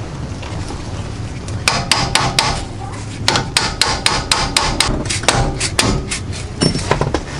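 A hammer striking repeatedly during front shock and spring installation. About five quick blows are followed after a short pause by a longer run of a dozen or so, at roughly four or five a second.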